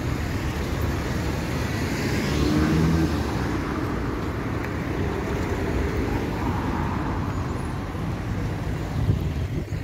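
City street traffic: cars driving past close by through a roundabout, a steady rumble of engines and tyres, with one car passing loudest about two to three seconds in.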